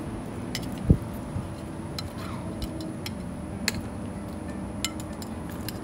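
A metal spoon clinking lightly against a plate and a cooking pot several times as pieces of fish are spooned into a pot of sauce, with one dull thump about a second in. A faint steady hum runs underneath.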